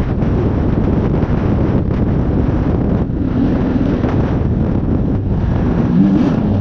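Heavy wind rumble on the microphone. From about three seconds in, a faint engine-like pitch rises and falls beneath it.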